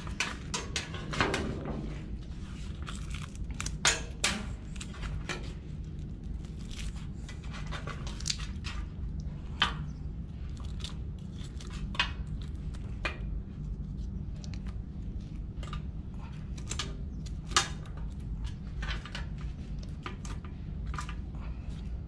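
Barnacles being scraped and prised off a sea turtle's shell by hand: irregular clicks, scrapes and crunches, with a few sharper cracks as pieces break away.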